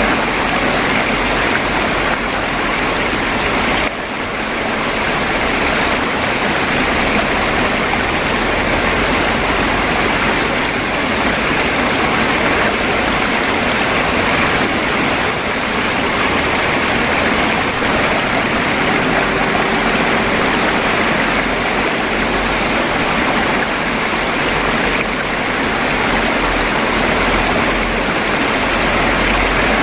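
Babbling stream water flowing steadily in an even, continuous rush, briefly softer about four seconds in.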